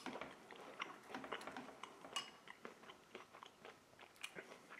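A person chewing a mouthful of rehydrated Waldorf salad with nuts in it. It is faint, with many small crunches.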